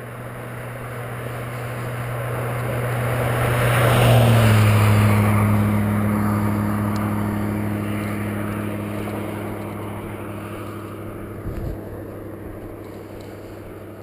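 A motor vehicle passing at highway speed: tyre and engine noise build up, peak about four seconds in as it goes by, and fade slowly as it moves away, its engine hum dropping in pitch as it passes.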